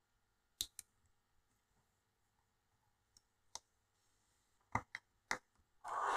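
Small plastic parts of a DJI O4 air unit clicking as they are handled and fitted together by hand: a handful of sharp separate clicks, then a short rustle near the end.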